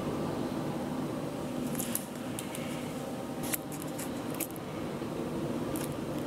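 A sneaker being handled and turned over: a few short, scattered clicks and rustles of the shoe's knit, sole and plastic parts, over a steady low room hum.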